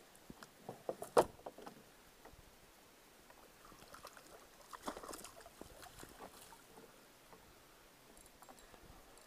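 Knocks and clatter of gear on a plastic fishing kayak, the loudest a sharp knock about a second in, then light water splashing beside the hull as a fish thrashes at the surface.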